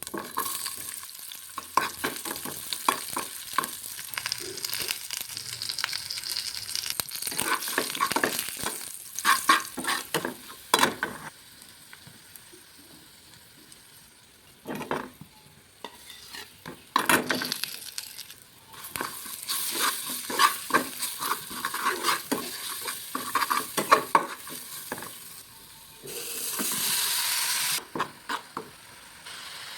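Food sizzling in a frying pan while it is stirred, with many quick scrapes and taps of the utensil against the pan. There is a quieter lull partway through and a louder burst of sizzling near the end.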